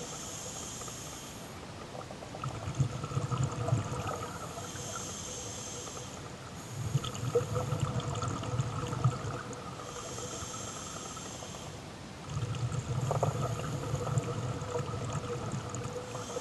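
Scuba diver breathing underwater through a regulator: a hissing inhalation, then a bubbling exhalation. Three breaths, about every five and a half seconds.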